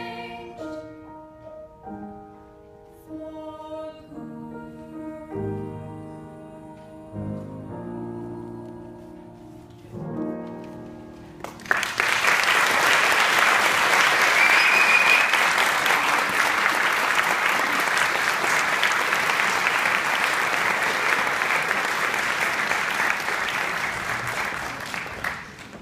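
Grand piano plays the closing notes of a song accompaniment, each chord fading away. About twelve seconds in, the audience breaks into steady applause, which eases off near the end.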